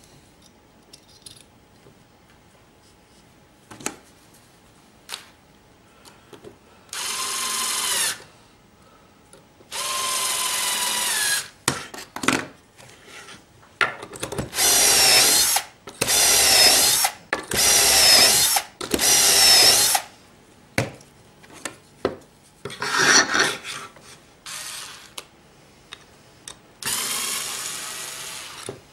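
Cordless drill boring dowel holes through the metal guide of a doweling jig into a wooden board. The drill runs in about eight short bursts of one to two seconds each, with small clicks and knocks as the jig and drill are handled between runs.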